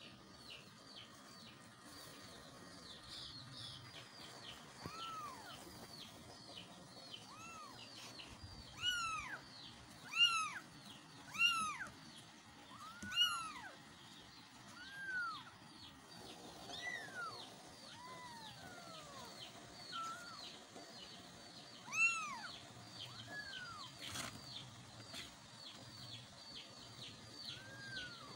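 Very young kittens meowing for their mother: a string of thin, high meows, each rising and falling in pitch, loudest in a quick run of four near the middle and another later on. Much fainter quick high chirps run underneath.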